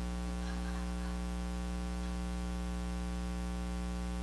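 Steady electrical mains hum with a buzzing edge, from the sound system or the recording chain, holding at one pitch and level without change.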